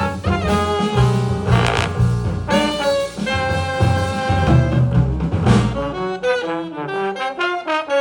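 Jazz big band playing, saxophones and brass sounding together over a low bass line. About six seconds in the bass drops out and the horns play short, quick notes.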